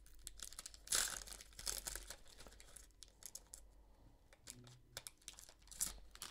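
Foil wrapper of a baseball card pack being torn open and crinkled by hand, with scattered crackling rustles; the loudest crinkle comes about a second in.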